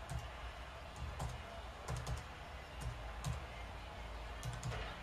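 Typing on a computer keyboard: irregular, scattered keystrokes with short pauses between them.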